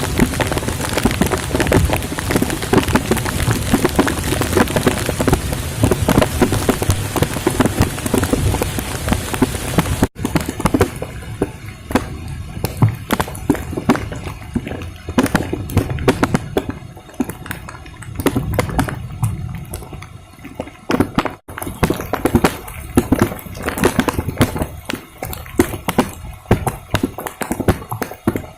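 Heavy rain falling, with a dense patter of close raindrop hits. It is heaviest at first and thins after about ten seconds.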